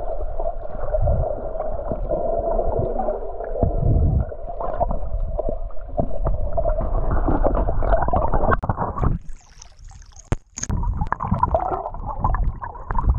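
Muffled gurgling and bubbling of water as heard by a camera underwater. About nine seconds in it drops away for a second or so, leaving a faint hiss, then returns.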